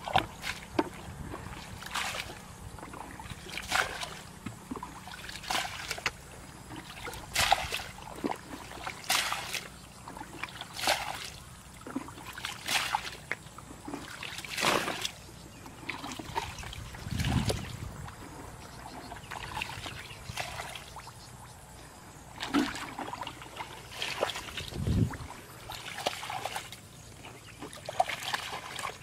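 Shallow muddy water splashing and sloshing as hands and a plastic bucket scoop and pour through it, in short splashes every second or two.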